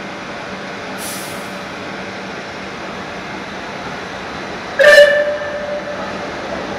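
Rebuilt Bulleid Merchant Navy class 4-6-2 steam locomotive 35028 Clan Line coming into the platform, with a brief hiss about a second in. About five seconds in it gives one short, loud whistle blast that trails off over the next second.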